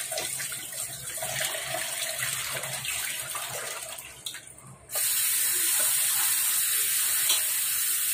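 A kitchen tap runs into a sink while thin papaya slices are rinsed in a steel bowl, the water splashing unevenly. About five seconds in, the flow changes to a louder, steady stream.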